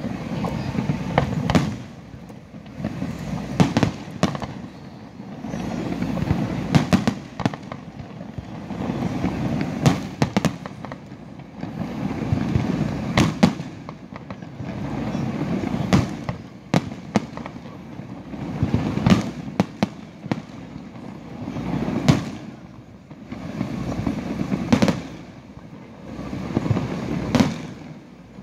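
Aerial fireworks shells bursting in quick succession: many sharp bangs over a deep rumbling boom that swells and fades every few seconds.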